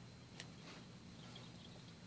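Near silence with a faint low hum, broken about half a second in by a faint sharp click of a plastic Perler bead set onto a pegboard peg, with a weaker one just after.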